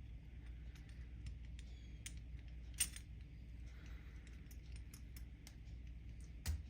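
Scattered small metallic clicks and taps of an RC car's drive shaft and hub being worked by hand to push the shaft through a tight hub bearing, with one sharper click about three seconds in.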